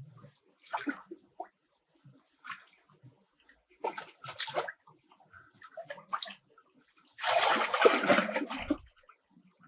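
Water splashing and sloshing in irregular bursts, the longest and loudest lasting nearly two seconds about seven seconds in.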